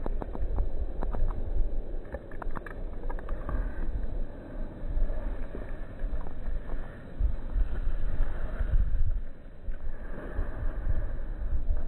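Wind buffeting the microphone outdoors, a gusty low rumble that swells and dips, with a run of light clicks in the first few seconds.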